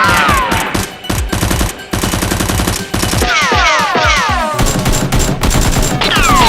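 Rapid-fire gunshot sound effects laid over background music, with a run of quick falling whistle-like sweeps a little past the middle.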